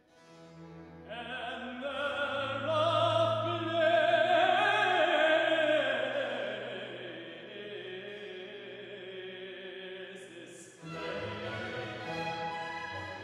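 Tenor soloist singing a long, held phrase over a baroque string orchestra with continuo, entering after a brief pause. About eleven seconds in the voice stops and the strings play on alone.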